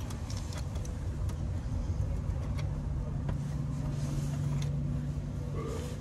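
Low steady mechanical rumble with a hum that builds through the middle and stops just before the end, over a few light clicks of a screwdriver and wire connectors being handled at an air-conditioner compressor's terminals.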